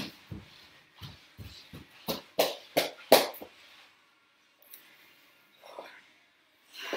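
Fast, rhythmic panting and feet sliding on towels over a hardwood floor from mountain climbers, about three strokes a second, stopping about three and a half seconds in.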